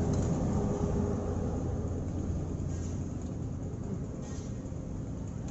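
Low, steady engine rumble of a motor vehicle that slowly fades away.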